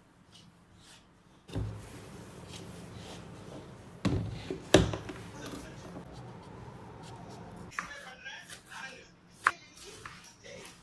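Kitchen knife and wooden cutting board being handled over a steady low hum. There are two loud knocks a little after four seconds in as they are set down, then a few sharp taps of the knife on the board in the last few seconds as slicing of a tomato begins.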